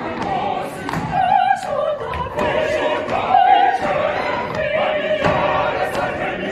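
A large choir singing together, with a lead voice holding long notes with a wide vibrato over the massed voices. Sharp claps and foot stamps from the dancing singers come through the singing.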